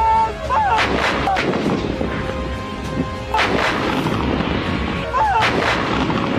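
Truck-mounted self-propelled howitzers firing in volleys: three clusters of heavy booms with a rolling echo, about a second in, about halfway, and near the end, each a few shots close together.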